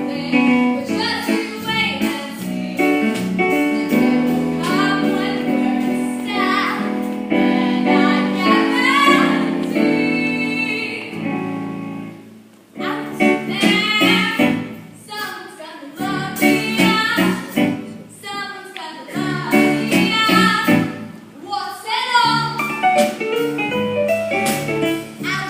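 A stage-musical song: live singing voices over instrumental accompaniment. The music briefly drops away about halfway through, then the singing resumes.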